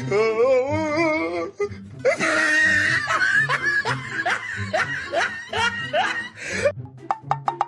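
Music with a dubbed laughing sound effect: a wavering tone at first, then a run of repeated laughs, and quick ticks near the end.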